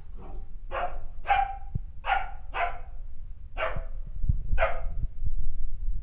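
Young German Shepherd barking: six short barks spread over about four seconds, with low thumps near the end.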